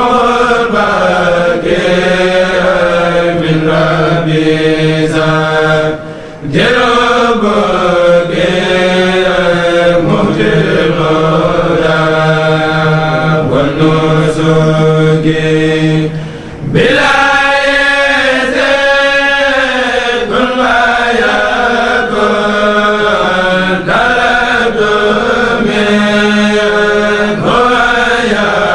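An unaccompanied kourel of men chanting a Mouride khassida in unison, with a low note held steadily beneath the melody. The chant breaks off briefly for breath twice, about six seconds in and again just past the middle.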